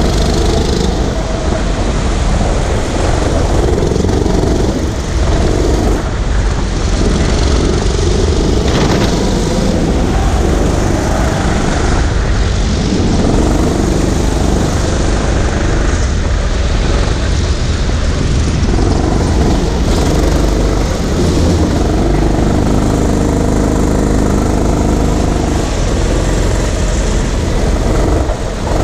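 Small go-kart engine running under the onboard camera, its pitch rising and falling as the kart accelerates and lifts through the corners of a lap.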